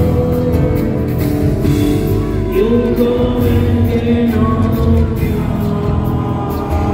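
Live rock band playing, with a male voice singing into the microphone over it.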